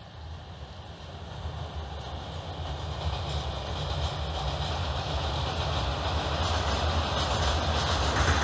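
A coal-loaded freight train behind twin WAG-5 electric locomotives, running across a girder bridge as it approaches: a low rumble that grows steadily louder.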